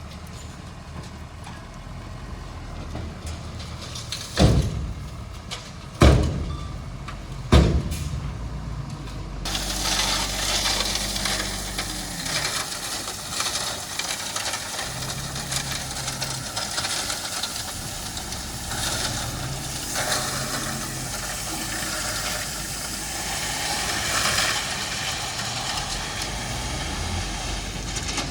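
Heavy road-construction machine's engine running steadily at low pitch, with three loud knocks a second or two apart a few seconds in, after which a broad hissing noise rises over the engine.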